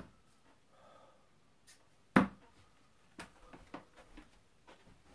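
A steel-tip dart thudding once into a Winmau Blade sisal bristle dartboard about two seconds in, followed by a few faint, irregular clicks.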